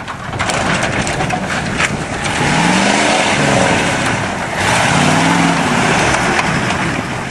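A 1991 Ford F250's 7.3-litre diesel V8 revs up and drops back twice under load, over a loud rushing noise with scattered clicks and rattles.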